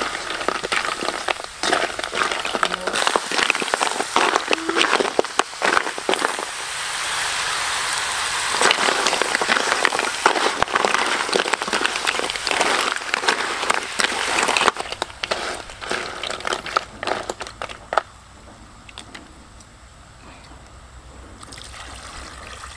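Snails in their shells being stir-fried in a wok: a spatula knocking and scraping and the shells clattering against the pan, over steady sizzling. The sound drops off about eighteen seconds in, and near the end water is poured into the wok.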